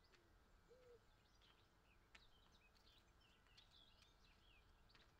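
Faint birdsong: small birds chirping with many short, high calls over a quiet outdoor background.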